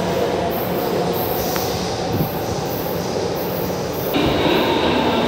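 São Paulo Metro train running in an underground station, a steady rumble of wheels and motors echoing off the concrete. About four seconds in it grows louder and a thin high squeal joins.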